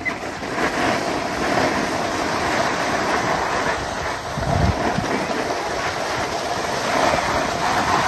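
Skis sliding over groomed snow, a steady scraping hiss, with a short wind buffet on the microphone about four and a half seconds in.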